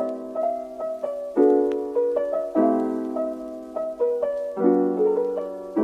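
Background intro music on a keyboard: held chords that change about every two seconds, with a light melody of short notes played above them.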